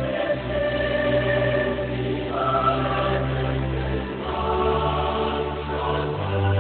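Choral music: a choir sings slow, held chords over a sustained low bass, the chord changing about every two seconds.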